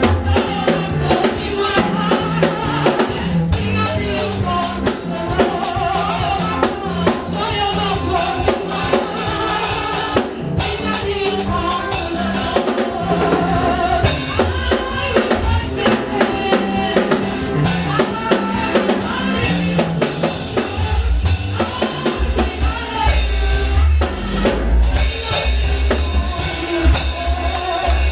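Music with a drum kit playing a steady beat, bass drum and rimshots, along with other instruments. A heavy, deep bass comes in during the last several seconds.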